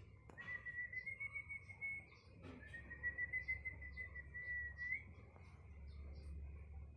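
Puppy whining: two long, thin, high whines, each about two seconds, the second rising slightly at its end.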